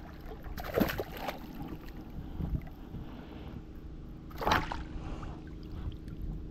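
A hooked black bass splashing at the surface beside a boat as it is played in and lifted by hand: two sharp splashes, about a second in and again at about four and a half seconds, over steady wind and lapping water.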